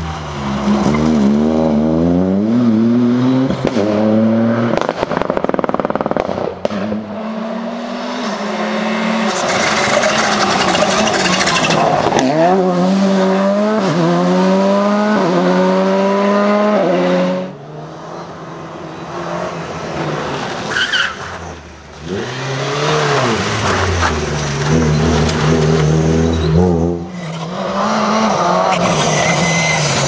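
Rally cars at full throttle on a special stage, one after another, engines revving hard and climbing in pitch through the gears with quick drops at each upshift.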